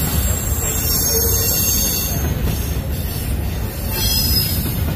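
Freight train of empty intermodal well cars rolling past: a steady low rumble of wheels on rail with thin, high-pitched wheel squeal over it, stronger near the end.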